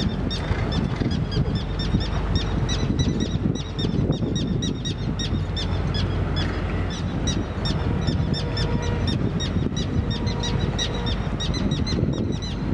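Steady low wind rumble on the microphone, with a rapid, even run of high chirps from a bird, about five a second.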